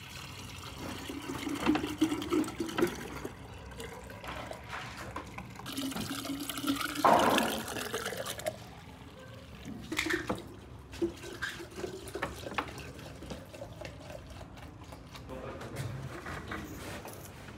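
A red fruit drink pouring from a large plastic bottle into glass jugs, a steady splashing pour for roughly the first half. After that it is quieter, with a few light clicks and knocks.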